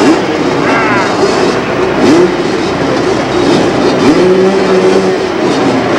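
Engines revving up and down over a steady noisy din, with one engine note held steady for about a second near the end.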